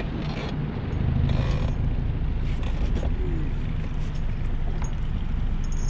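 Boat's outboard motor running steadily in neutral, a low rumble.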